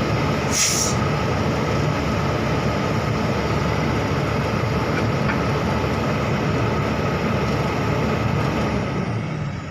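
Heavy diesel machinery running steadily, with a short hiss of air about half a second in; the sound fades off near the end.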